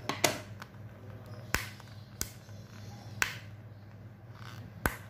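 About five sharp clicks and taps, spaced unevenly, as hands handle and pry at a cardboard trading-card deck box to open it.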